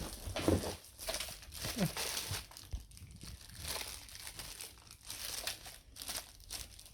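Packaging being handled during unboxing: irregular crinkling and rustling, with a few sharper tearing-like rasps.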